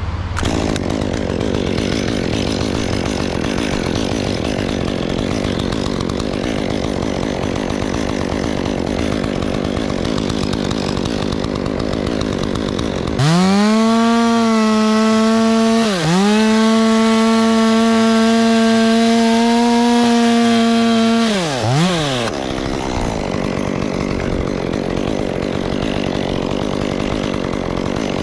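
A two-stroke chainsaw cutting wood, with a rough, uneven drone. About 13 s in, it revs up to a steady, high-pitched full-throttle whine, dips once for a moment, and drops back after about 8 s. Then the rough cutting sound resumes.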